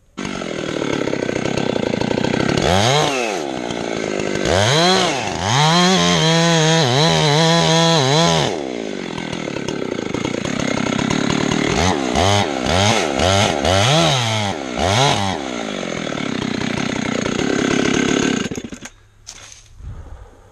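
Two-stroke chainsaw running, its engine revved up and down in repeated bursts and held at full speed for a few seconds in the middle, idling in between, then falling quiet near the end.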